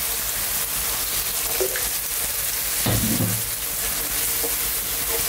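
Tomato and chickpea stew sizzling in a pan as cold water goes into it and it is stirred with a wooden spoon.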